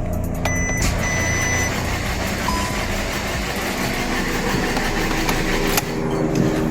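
VW Golf 1.4 TSI engine being cranked over by the starter without firing, for a compression test with the fuel pump fuse pulled; the cylinder under test holds no compression. A short high beep sounds near the start, and the cranking stops with a click about six seconds in.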